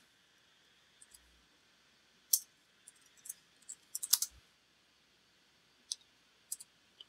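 Computer keyboard being typed on in slow, scattered keystrokes. The sharp key clicks come a few at a time, with a small cluster about four seconds in.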